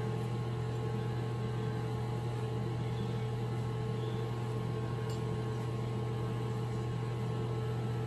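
Corded electric hair clippers running with a steady buzz as they trim the hair around the ear.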